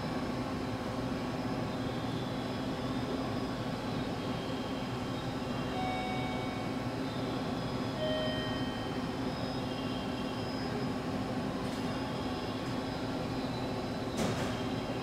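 Steady low mechanical hum of a railway station, with a single short knock near the end.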